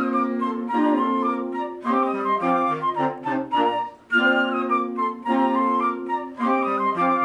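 Band music: a sustained melody over chords with a bass line stepping down, the phrase repeating about every four seconds.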